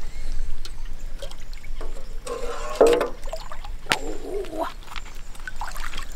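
A billy can being dipped into a shallow river and filling with water, in uneven bursts of water sound.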